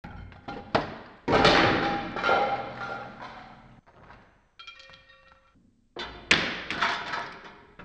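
Homemade chain-reaction contraptions knocking and clattering: a few light clicks, then two loud crashing impacts that ring on and fade over a couple of seconds, with a short ringing tone between them.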